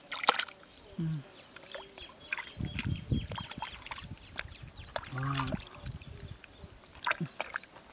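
Wet mud squelching and muddy water sloshing and trickling as hands dig and scoop through shallow riverbed mud, with irregular small splashes and drips.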